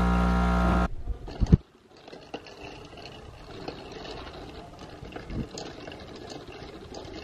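Espresso machine running with a steady, loud hum that cuts off abruptly about a second in. A few knocks follow, then quieter liquid and ice sounds in a glass.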